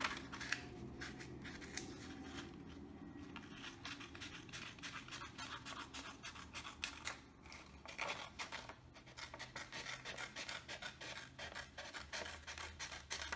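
Small hand scissors cutting through a sheet of paper along a fold: a long run of short, irregular snips, thinning out for a moment about three seconds in.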